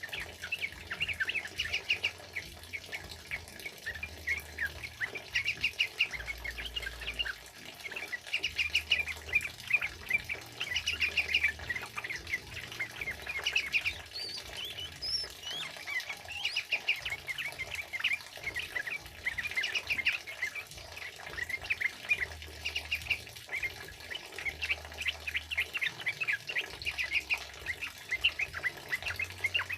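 Yellow-vented bulbuls singing: several birds at once in quick, bubbling runs of repeated phrases with hardly a pause, over a faint hiss of rain.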